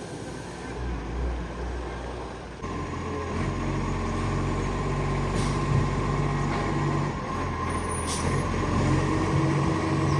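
Garbage truck diesel engine running with an exhaust leak, its note stepping up and growing louder about two and a half seconds in, with a couple of sharp clicks later.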